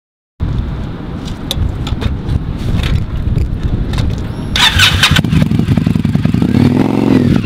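Indian Scout motorcycle's V-twin engine running with a loud, uneven rumble, cutting in suddenly under half a second in. A short hiss comes about halfway through, and near the end the engine is revved, its pitch rising and falling.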